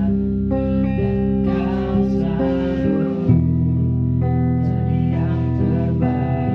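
A band playing a slow pop song: acoustic guitar chords over sustained bass notes, changing chord about three seconds in, with a man singing into a microphone.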